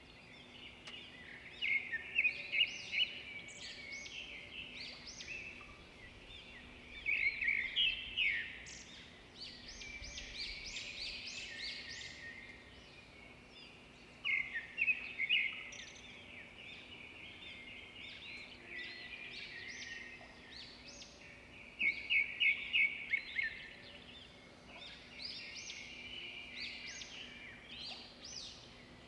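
Birds chirping in repeated bursts of short, high chirps, over a faint steady low hum.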